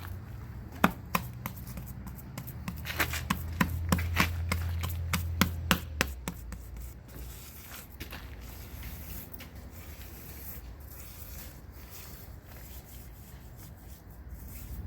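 Hands slapping and pressing wet clay onto the furnace wall: a quick run of sharp slaps over the first six seconds or so, then quieter rubbing and smoothing.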